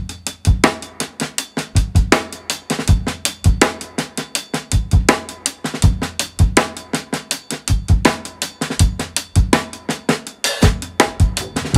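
Background music led by a drum-kit beat: kick drum, snare and cymbals striking in a steady rhythm.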